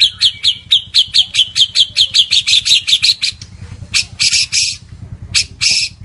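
White-rumped shama singing: a fast, even run of short, sharp downward-slurred notes, about six a second, for the first three seconds, then a few harsh, rasping notes near the end.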